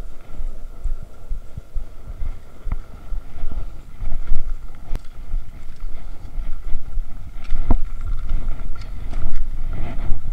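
Wind rumbling on the microphone during cross-country skiing on groomed trails, with the swish of skis on snow and a few sharp clicks.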